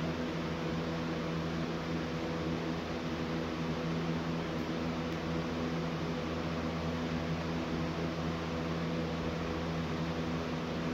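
Steady motor hum with an even hiss from a running room appliance, a low buzzing drone that does not change.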